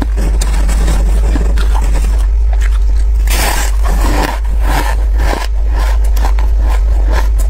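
Teeth biting and chewing fluffy freezer frost, giving a run of short crunches. The heaviest crunching comes about three and a half seconds in and again around five seconds in, over a steady low hum.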